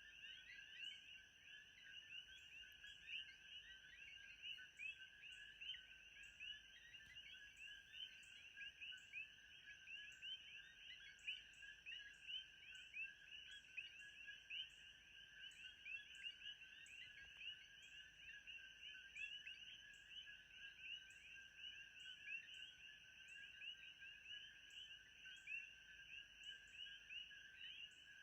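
Faint, dense chorus of small animal calls, a steady stream of quick chirps, with a thin steady high tone above it and soft ticks about once a second.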